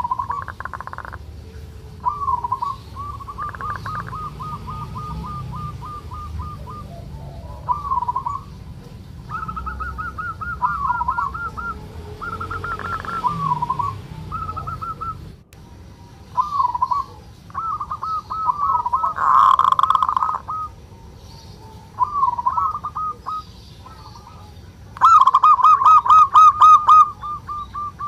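Zebra doves (perkutut) giving rapid rattling 'kerot' trills, the call of males in breeding condition, in repeated bursts of a second or more. At times two birds overlap at slightly different pitches, and the loudest, fullest trills come near the end.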